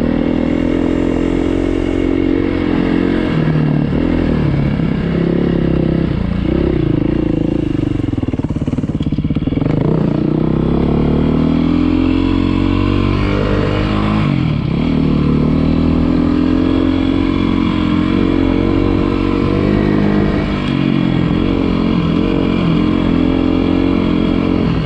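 Beta 390 RR-S dirt bike's four-stroke single-cylinder engine running under riding load, its pitch climbing with the throttle and falling off, with a deep drop and re-climb about nine seconds in and another near fifteen seconds.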